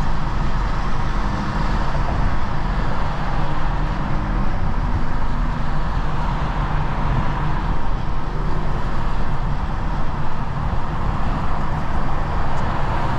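BMW 435i's turbocharged N55 straight-six running at low speed in heavy traffic: a steady low engine drone whose pitch shifts a little, with tyre and road noise underneath.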